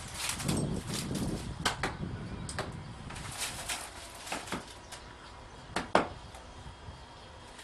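Footsteps crunching over dry ground and leaves: irregular short crunches and snaps, the sharpest about six seconds in.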